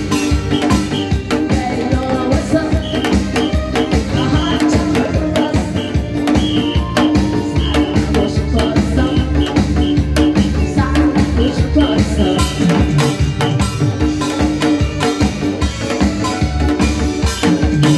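Lively instrumental music with a steady, fast drum beat under sustained held notes.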